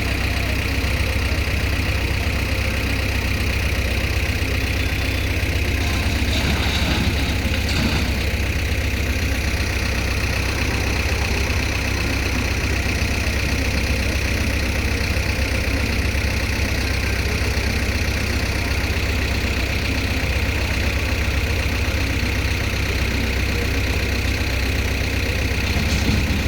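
Heavy diesel engine of earthmoving machinery running steadily at a low, even rumble, with a brief rise in level about six to eight seconds in.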